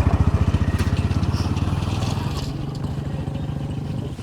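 A small engine running with a fast, even chugging beat, fading steadily.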